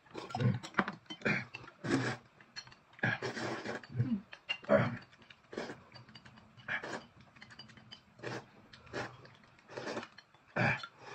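A person eating and drinking noisily: short, irregular mouth sounds of slurping and gulping, one every half second or so.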